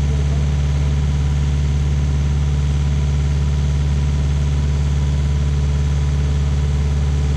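Rayco RG50 stump grinder's engine running steadily at an even speed, with no change in load.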